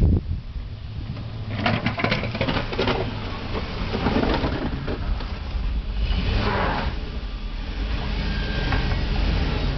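Snow-plowing vehicle's engine running steadily with a low rumble, with short bursts of rushing noise over it.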